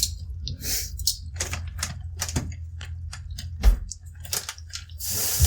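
A spoon and small measuring cups clicking and tapping in quick, irregular strokes over a low steady hum, with a rush of noise starting near the end.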